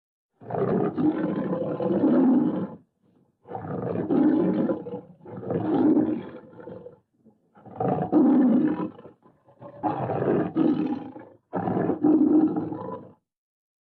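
Tiger roaring: six separate roars of about two seconds each, split by short gaps of dead silence, as in edited sound-effect clips.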